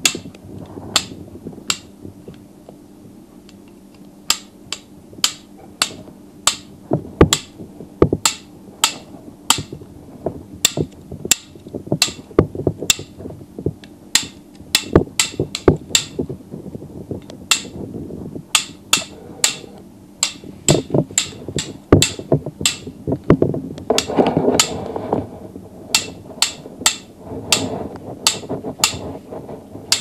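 A long series of sharp knocks or taps, about two a second at uneven spacing, over a low background rumble that swells for a few seconds near the end.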